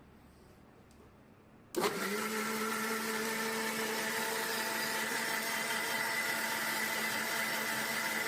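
Suruchi Elantra 800-watt mixer grinder motor switched on about two seconds in, spinning up within a fraction of a second and then running at a steady pitch.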